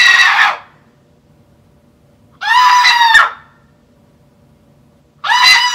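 A person shrieking in a high falsetto three times. One cry ends just after the start, one comes about two and a half seconds in, and a short one comes near the end, each under a second long with quiet between.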